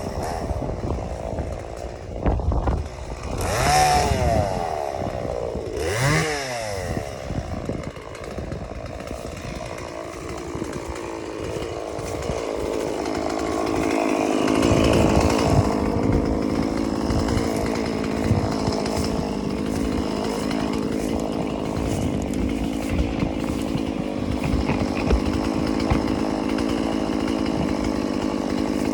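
Stihl MS 170 small two-stroke chainsaw, revved up and back down twice a few seconds in, then from about twelve seconds held running steadily at high revs.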